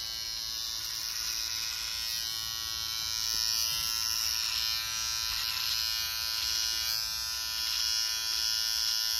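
Electric hair clippers buzzing steadily as they cut a man's hair around the temple and brow.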